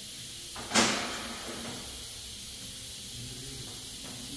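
A single sharp clank with a short ring-out, from a tool being handled off-camera, over a steady background hiss.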